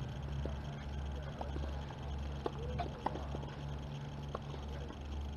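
Outdoor tennis-court ambience: a steady low rumble with faint bird chirps and a few light knocks of distant tennis balls, then a sharp racket strike on a tennis ball at the very end.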